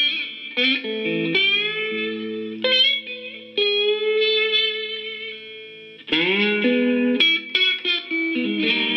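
Electric cigar box guitar played through a small amp: plucked notes that bend up in pitch into held tones, a long note left to fade in the middle, then a fresh strummed phrase about six seconds in.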